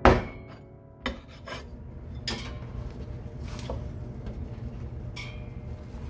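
Kitchen knife cutting through a spangled emperor's head and bones on a plastic cutting board. A loud knock comes at the start, then rasping and scraping with several sharp clicks as the blade works through the bone.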